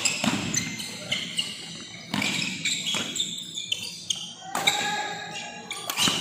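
Badminton rally: rackets striking the shuttlecock about once a second, with short high squeaks between the hits.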